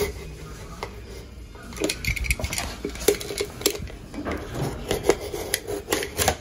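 A knife blade scraping and cutting along the painted joint between a washer box's trim flange and the textured drywall, breaking the paint seal. It starts quieter, then from about two seconds in comes a run of irregular scratchy scrapes and clicks.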